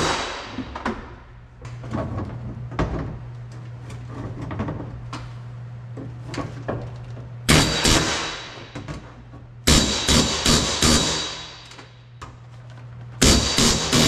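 Pneumatic rivet gun hammering solid rivets against a steel bucking bar (dolly), in three rapid rattling bursts of a second or two each, about halfway through, a little later, and near the end. Between bursts there are light single taps and a steady low hum.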